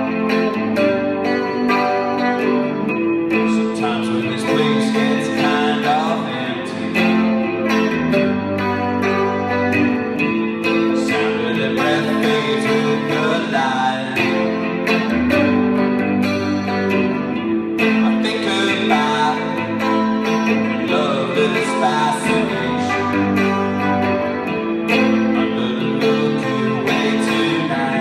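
Live rock song: a man singing while playing a Telecaster-style electric guitar.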